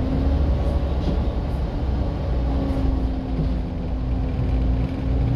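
Volvo B7TL double-decker bus's diesel engine running with a deep, steady rumble. A steady hoover-like hum sits over it at the start and again through the second half.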